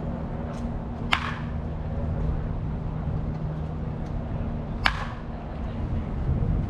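A baseball bat cracking against a pitched ball twice, about four seconds apart, each a sharp hit with a short ringing tail. A steady low hum runs underneath.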